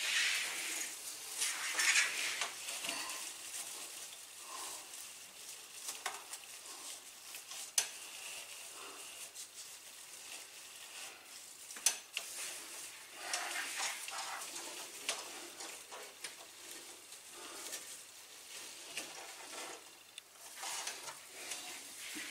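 Artificial garland's plastic foliage rustling and crackling in uneven bursts as it is handled and hung by hand, with two sharp clicks near the middle.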